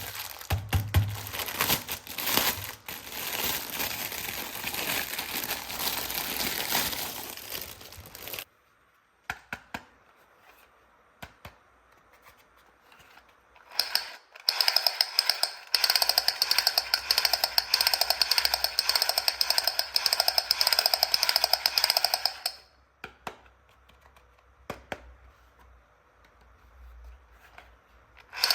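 Plastic toy parts and packaging crinkling and clattering for about eight seconds, then a few scattered clicks. About fourteen seconds in, a battery-powered toy automatic rifle's rapid-fire rattle starts: a fast, even pulsing with a steady high electronic tone, lasting about eight seconds before it stops, followed by more light clicks.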